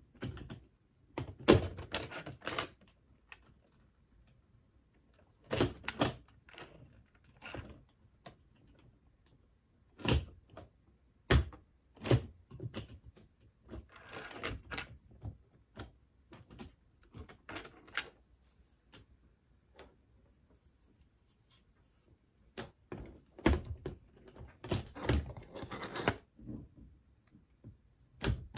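Plastic LEGO bricks being handled and pressed together: scattered sharp clicks and knocks and short bursts of clatter, with a longer rattle of loose pieces midway and a busy run of clicks near the end.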